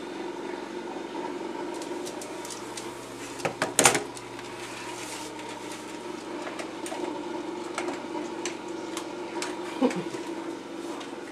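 Dog eating from a stainless-steel bowl: scattered small crunches and clinks, with a louder clatter about four seconds in, over a steady mechanical hum.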